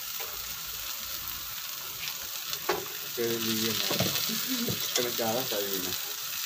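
Kaladi, the Jammu raw-milk cheese, and bread slices frying in oil on a large flat griddle, with a steady sizzling hiss as the kaladi cooks. Indistinct voices come in briefly about three and five seconds in.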